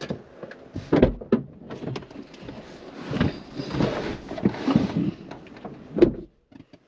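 Knocks and rustling as a man climbs into a car's driver's seat, then a car door shutting with a heavy thud near the end.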